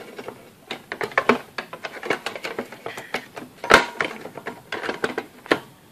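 Plastic air-duct shroud being jiggled and pushed onto a CPU heatsink inside a PC case: a run of irregular plastic clicks and knocks, with one sharper knock a little past halfway. The duct is not seating properly.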